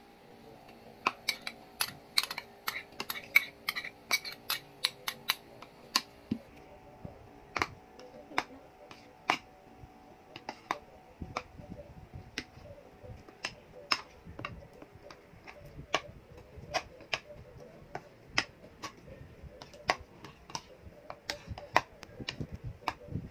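Metal spoons clinking and scraping against ceramic bowls as thick chocolate rice porridge is stirred and eaten: a quick run of clinks from about a second in, thinning after about six seconds to separate clinks every half second or so.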